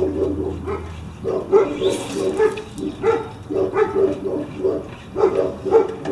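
An animal calling in short pitched yaps, several a second, in an uneven run.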